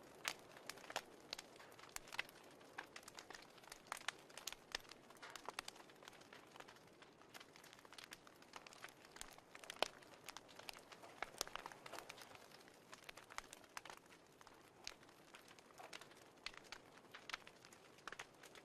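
Wood fire crackling, faintly: irregular sharp snaps, several a second, over a soft steady hiss.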